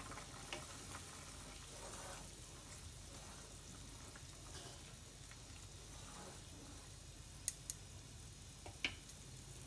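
Faint bubbling of a curry gravy at the boil in a metal kadhai as a wooden spatula stirs it. A few light knocks of the spatula against the pan come near the end.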